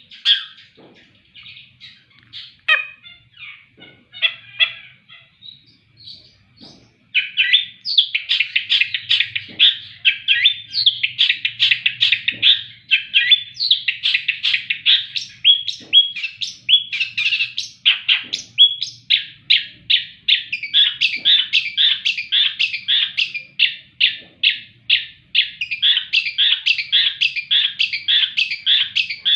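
Long-tailed shrike singing: scattered short notes at first, then about seven seconds in a fast, continuous run of rapid chattering notes.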